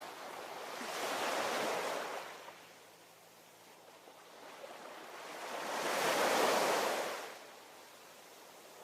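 Ocean waves breaking on the shore: two swelling rushes of surf, one about a second in and a louder one near six seconds, each fading back to a soft hiss.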